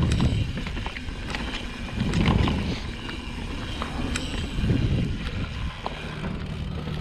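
Mountain bike rolling along a dirt trail, picked up by a bike-mounted action camera: wind gusts on the microphone and tyre noise, with scattered clicks and rattles from the bike. A low steady hum comes in near the end.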